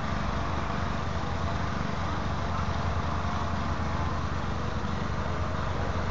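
Steady machinery drone, an even rushing noise over a strong low hum, with no let-up.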